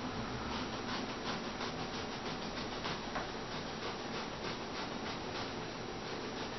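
Upholstery foam being shaved and torn into strips by hand: a steady scratchy rustle with many small irregular scratches.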